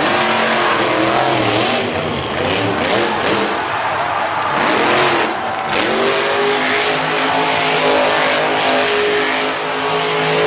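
Grave Digger monster truck's engine revving hard, its pitch swinging up and down repeatedly, then climbing about two-thirds of the way in and holding high.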